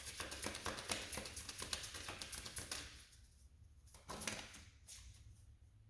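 A deck of reading cards being shuffled by hand: a rapid patter of card clicks that fades out about three seconds in, then one short rustle of cards about four seconds in.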